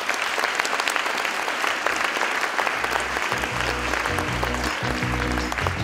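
Audience applauding, a dense patter of clapping. About three seconds in, music with a low, rhythmic bass line comes in under the clapping.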